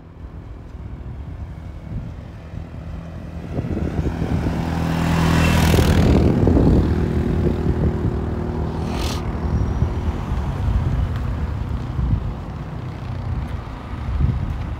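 A motor vehicle passes close by, its engine hum and road noise swelling to a peak about six seconds in and then slowly fading.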